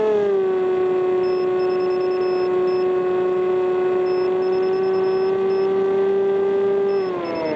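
Radio-controlled model aeroplane's motor running at a steady high pitch. The pitch drops a little just after the start and falls again near the end.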